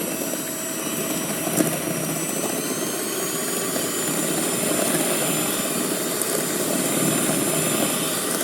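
Steady whirring of a small motor, with a thin high whine that rises slightly about three seconds in and a single click about one and a half seconds in.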